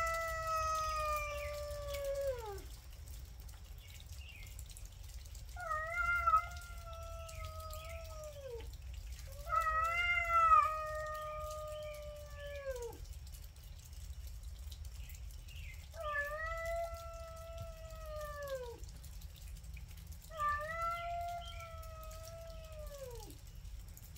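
Cats yowling in a territorial standoff: five long, drawn-out yowls in turn, each two to three seconds long, held level and then dropping away in pitch at the end, with short pauses between them.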